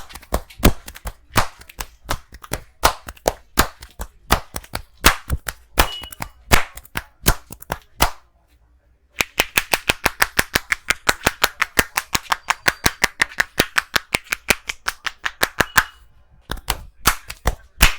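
Massage strikes from a barber's hands on a client: sharp slaps at about two or three a second, then, after a pause of about a second, a faster, even run of about five a second, and a few last slaps near the end.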